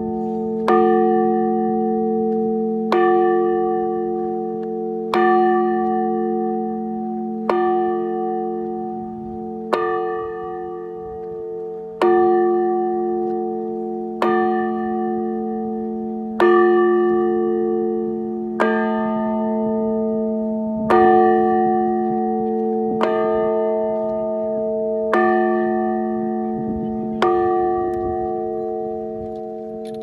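Large bronze Time and Tide Bell struck by hand with wooden mallets about every two seconds, each strike ringing on over the last in a chord of sustained tones. The strikes stop a few seconds before the end and the ringing fades.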